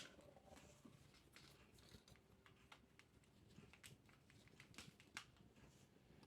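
Near silence with faint, scattered clicks and light rustles of small objects being handled.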